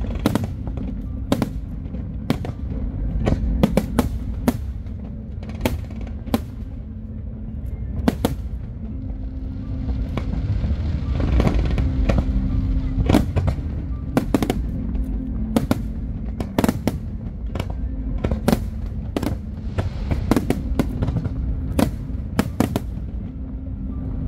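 Aerial fireworks shells bursting in an irregular stream of sharp bangs, several a second at times, over a continuous low rumble. A hissing crackle swells up in the middle.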